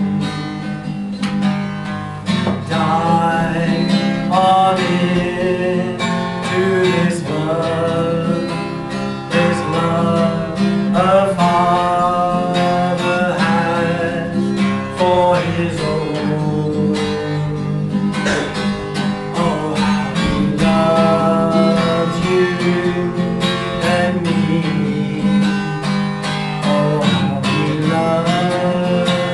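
Acoustic guitar strummed steadily as worship-song accompaniment, with a voice singing along at times.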